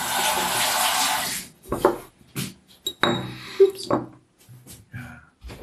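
Kitchen handling sounds: a steady rushing hiss for about a second and a half that stops abruptly, then scattered clinks and knocks of dishes and utensils.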